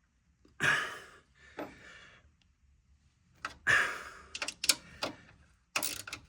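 Workshop handling noises: a few short rustling whooshes and a run of sharp clicks and knocks, as of tools and metal parts being handled.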